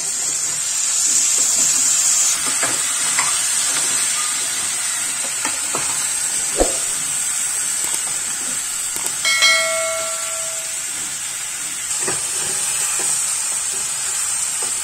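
Potatoes and peas frying in oil in a kadai with a steady sizzle, stirred with a metal ladle that scrapes and knocks against the pan. A short ringing chime sounds about nine seconds in.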